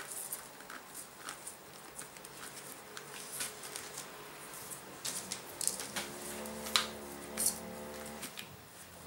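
Thin embossing metal foil crinkling and clicking in short sharp crackles as it is pressed and folded around a star-shaped tree topper. Past the middle a steady pitched tone sounds for about two seconds.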